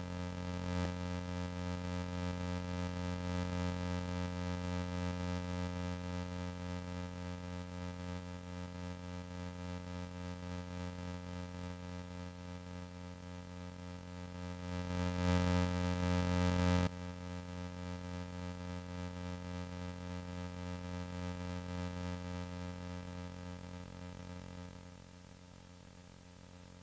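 Electronic background music: a synthesizer chord held unchanged over a steady pulse. It swells louder a little past the middle, drops back suddenly, and fades down near the end.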